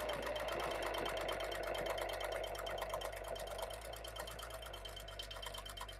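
Janome HD9 straight-stitch sewing machine running fast, its needle stitching through eight layers of denim in a steady rapid ticking, which grows quieter over the last few seconds and stops.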